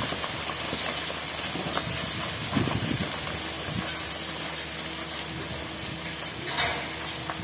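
Steady hiss and hum of distant construction machinery, with a faint steady tone joining in about four seconds in and a couple of soft swells.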